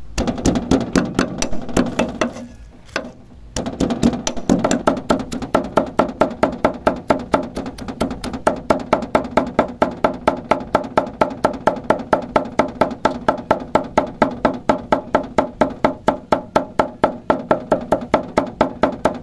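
Large kitchen knife chopping garlic and red chilies on a thick wooden chopping block: rapid, even knocks of the blade on the wood, about four a second, with a short pause about three seconds in.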